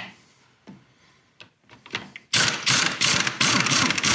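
A ratchet wrench on a long socket extension backs out an engine mounting bolt. A few single clicks come first, then about two seconds in a fast, loud, continuous ratcheting rattle sets in.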